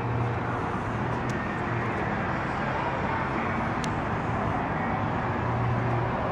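Steady motor-vehicle noise: an even rumble with a low hum that comes and goes, and a light click about four seconds in.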